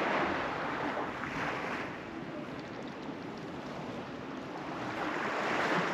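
Small waves washing against a concrete slipway, a soft rushing that swells and falls twice.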